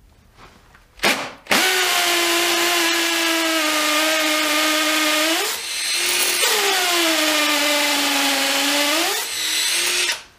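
Makita DTP141 cordless 4-mode impact driver running in hammer-drill mode with a new 8 mm masonry bit in brick: a short blip about a second in, then two long runs of a steady whine with a brief ease-off between them, the pitch sagging as it bears on the wall. The bit is not getting into the brick.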